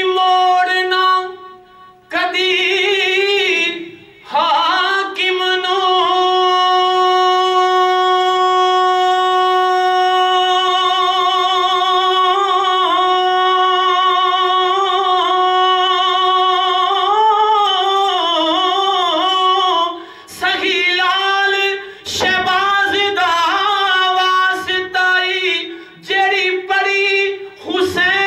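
A man singing an Urdu naat without instruments. He holds one long, steady note for about twelve seconds, then breaks into wavering, ornamented phrases with short pauses for breath.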